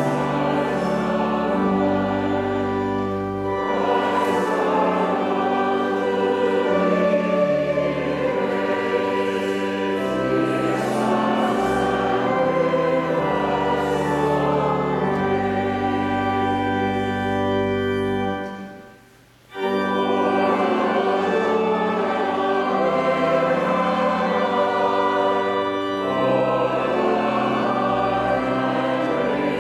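Choir and congregation singing a hymn with organ accompaniment, over sustained low organ notes. Singing and organ drop out for a short break about two-thirds of the way through, then resume.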